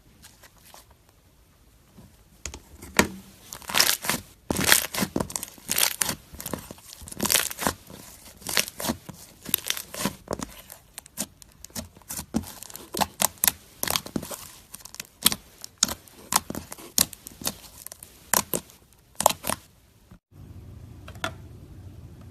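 Slime being pressed and pulled against a racket, giving a fast, irregular run of crackling pops and clicks. It stops abruptly near the end, where a low steady hum takes over.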